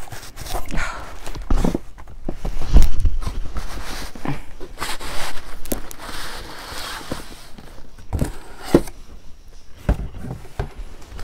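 A cardboard box being handled and worked open: irregular knocks and thumps, the loudest about three seconds in, with rustling and scraping of cardboard a little past the middle, as a heavy boxed display case is pulled from its packaging.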